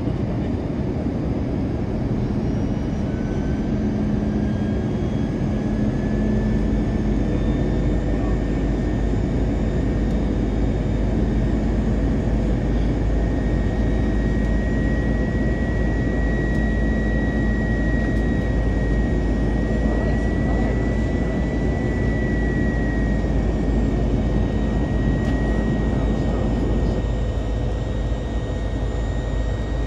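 Cabin noise inside an Airbus A321 airliner on its descent to land: a steady drone of jet engines and airflow, with a faint whine that rises slightly in pitch over the first several seconds and then holds.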